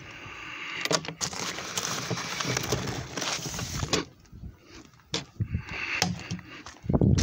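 A metal curbside mailbox being opened and emptied by hand: clicks and knocks of the door, then rustling and scraping as mail and a padded mailer envelope are pulled out.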